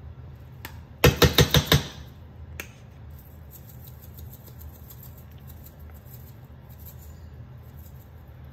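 Plastic spice shaker bottle shaken hard about six times in under a second, the dry seasoning rattling inside. This is followed by faint, light ticking as the seasoning is sprinkled out through the sifter cap.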